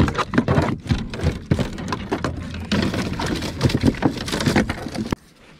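Irregular knocking, slapping and pattering on a plastic fishing kayak's deck where a freshly landed striped bass lies, the sound of the catch being handled on board. It cuts off suddenly near the end.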